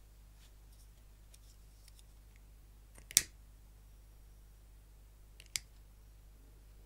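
Disposable lighter being struck: a sharp click about three seconds in as it lights, and a second, weaker click a couple of seconds later.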